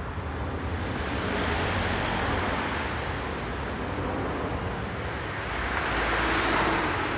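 Roadside rushing noise of cars passing, swelling about a second and a half in and again near the end, over a low rumble of wind on the microphone.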